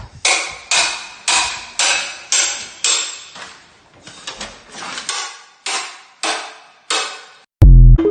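Repeated hammer blows, about two a second, each ringing briefly, with a short lull midway; a loud, deep thud comes near the end.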